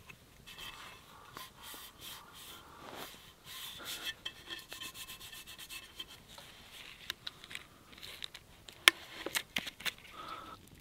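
Small axe being worked by hand: a run of short rubbing and scraping strokes on the steel head, then a few sharp clicks near the end, the loudest about nine seconds in.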